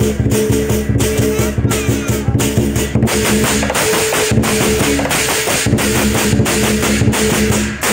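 Lion dance percussion playing: a Chinese drum beating with cymbals clashing about two to three times a second, over the sustained ring of a gong.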